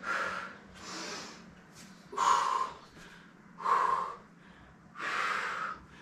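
A woman breathing hard from exertion during weighted sumo squats: five loud, airy breaths in about six seconds, each lasting about half a second.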